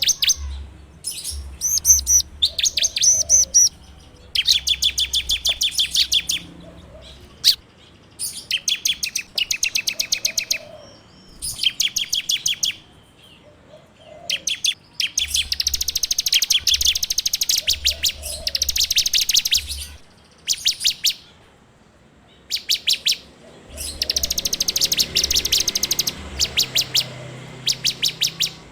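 A ciblek (prinia) singing its rapid, rattling trill in repeated bursts of about a second each, separated by short pauses.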